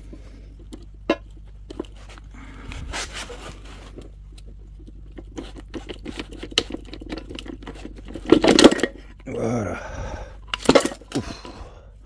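Steel gear shafts, gears and selector forks of a Peugeot 207 manual gearbox clicking and scraping against the aluminium casing as the gear assembly is worked loose and lifted out, with a louder clunk about eight seconds in and a sharp click near the end.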